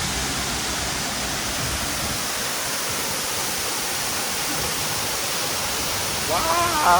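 Waterfall: water rushing in a steady, even roar. Near the end a pitched note slides up and back down over it.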